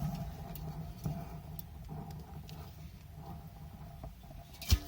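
Faint rustling and light scattered clicks, with one sharp knock near the end.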